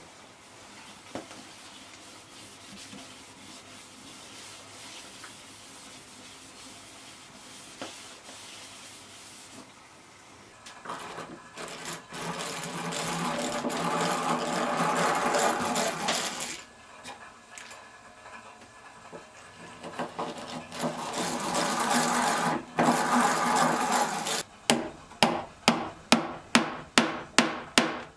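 Faint rubbing of a rag over pine boards, then a hand-cranked egg-beater drill boring into a pine block in two long loud spells with a short pause between. Near the end comes a quick run of about ten sharp hammer taps, roughly three a second, nailing the block down.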